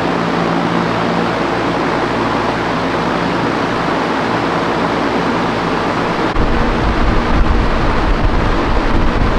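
A large drum fan running, a loud, steady rush of air with a low motor hum beneath it. About six seconds in, a louder, uneven low rumble takes over.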